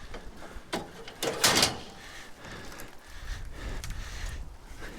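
Scrap being pulled apart by hand: a short scraping rasp about a second and a half in, among softer knocks and handling noise.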